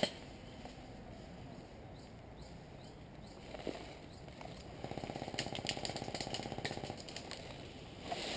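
Airsoft electric gun firing full-auto, a rapid even rattle of shots lasting about two seconds, starting a little past halfway.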